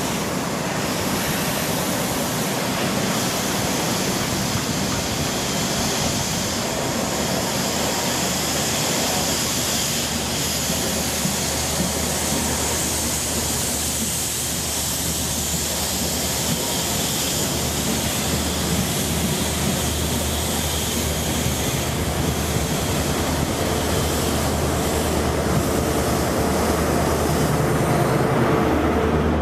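InterCity 125 (HST) diesel train running past and away, the steady drone of its power cars' diesel engines and wheel noise over a constant hiss, growing a little louder near the end.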